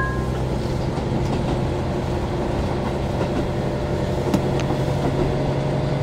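Inside a KiHa 40 diesel railcar under way: a steady diesel engine hum and wheel-on-rail rumble, with a single sharp click about four seconds in.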